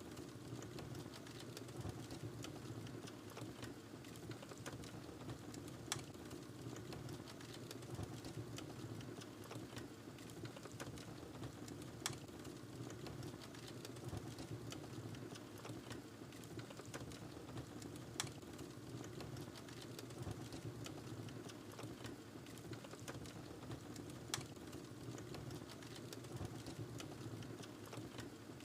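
Wood fire burning in a fireplace: a steady low sound of the flames with constant fine crackling, and a sharper pop about every six seconds.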